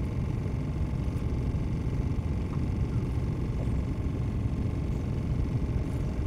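Steady low rumble with a faint, even hum above it, heard aboard a small fishing boat at sea. No single event stands out.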